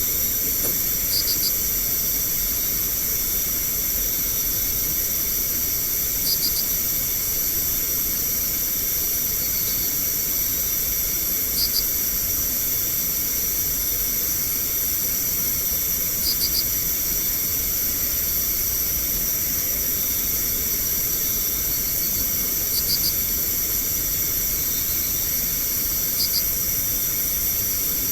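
Night insects: a steady high, hiss-like chorus, with a short chirp of two or three quick pips recurring about every five seconds.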